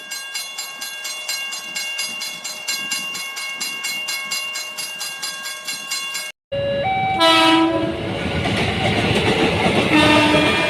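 A fast, regular ringing pattern that stops suddenly. After a break, a KRL commuter electric train runs on the rails and sounds its horn in a few short notes, then again near the end.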